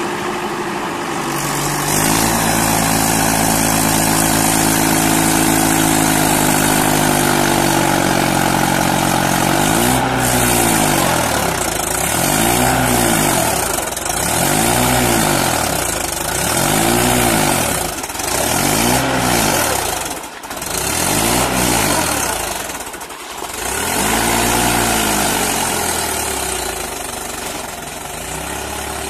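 Tractor engine running steadily under load, then revved up and down over and over, about once every second and a half to two seconds, as the tractor struggles stuck in deep paddy mud.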